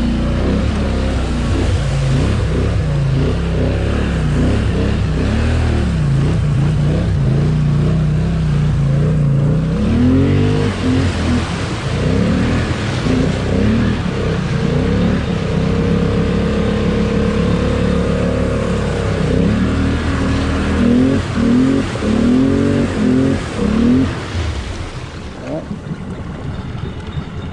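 ATV engine revving up and down over and over as the quad ploughs through a deep mud hole, with bursts of quick throttle blips and a stretch of steady high revs, over the churn of muddy water around it.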